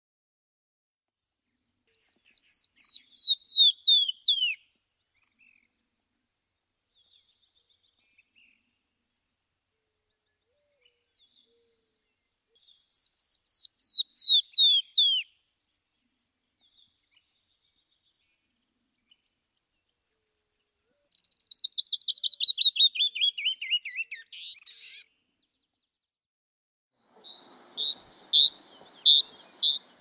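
A songbird singing: three trilled phrases of rapid falling notes, several seconds apart, each sliding lower as it goes, then a run of short repeated chirps near the end.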